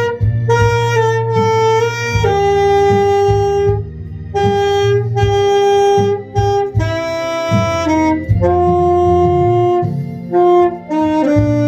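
Saxophone playing a slow melody in long held notes, over a backing track with a steady bass line.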